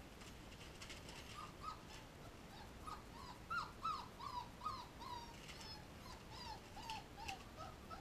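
Young puppies whimpering: a string of short, high, squeaky cries, each falling in pitch, coming thick and loudest in the middle and thinning out near the end.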